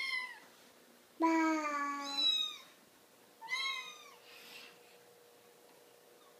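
Kittens meowing: three short, high, arching meows, with a longer, lower call in between just over a second in.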